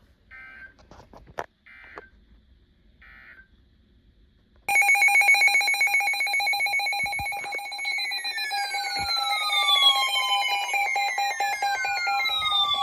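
Three short, quiet emergency-alert data bursts sound about a second apart, the end-of-message code closing the previous warning. About five seconds in, a loud electronic alert tone starts abruptly: several steady pitches under a fast pulsing, with repeated falling sweeps, marking the start of the next severe thunderstorm warning.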